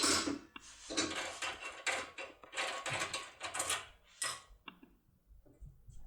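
Foil-covered ISEO R50/R11 impression tool being worked into a lock cylinder: a run of short metallic scrapes and clicks, thinning to a few faint clicks a little after four seconds in.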